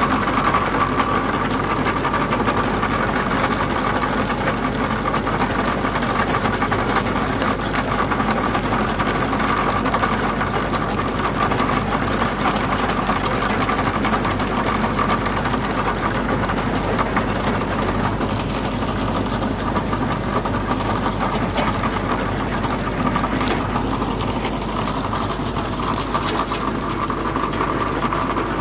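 Tractor engine running steadily under load, driving a Delta chain trencher whose digging chain cuts a narrow trench through soil.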